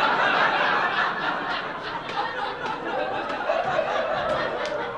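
Audience laughing in a crowded room, loudest at first and dying down gradually.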